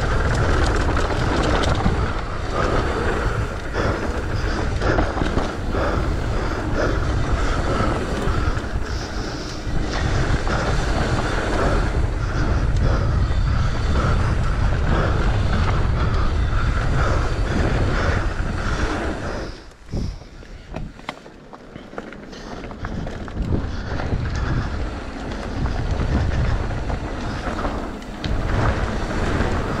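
Mountain bike descending a dirt and gravel bike-park trail at speed: wind buffeting the mounted camera's microphone over the tyres rumbling on the ground, with frequent small rattles from the bike. The noise drops away sharply about two-thirds of the way through as the bike slows, then builds back up.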